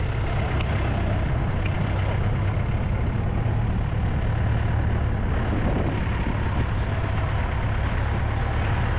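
An off-road SUV's engine running with a steady low drone.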